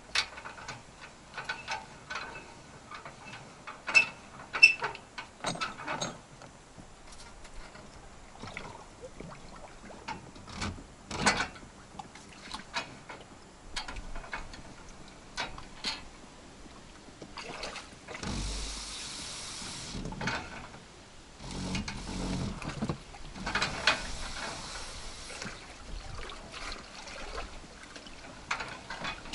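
Scattered metal clanks and knocks from a boat trailer and its hand winch as a boat is let off into the water. Two stretches of steady rushing noise come past the middle.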